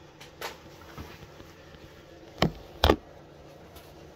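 Two loud, sharp knocks about half a second apart, after a couple of fainter clicks.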